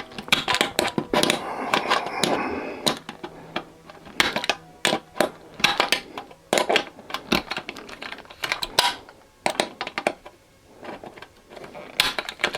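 Hand nibbler biting through thin stainless-steel sheet: a string of sharp metallic clicks at an uneven pace, about one or two a second, busier in the first few seconds.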